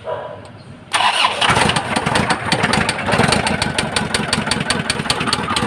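Isuzu 4JB1 2.8 diesel engine starting suddenly about a second in and running with a rapid, steady knocking. The mechanic judges the knock to be more than an injector fault: the engine has developed a real internal knock and needs a general overhaul.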